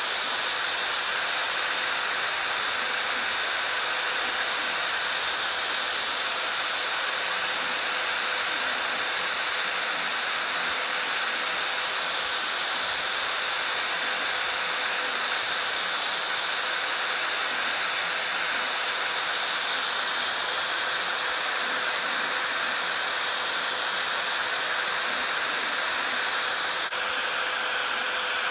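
CNC router spindle running at speed, its end mill milling 6 mm aluminium sheet: a steady high whine over continuous cutting noise.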